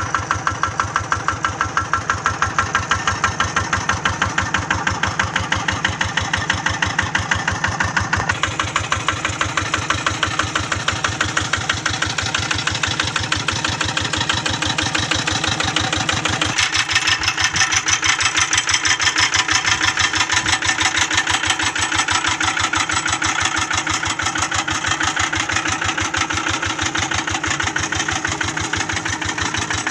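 Kubota RD85 DI-1S single-cylinder diesel engine on a hand tractor running steadily, its firing strokes making an even, regular beat.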